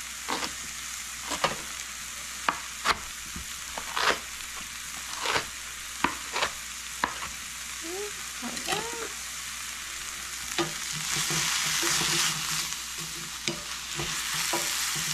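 Sliced Swiss chard stems frying in oil in a pan, a steady sizzle with a utensil clicking against the pan about once a second as they are stirred. The sizzle grows louder about eleven seconds in.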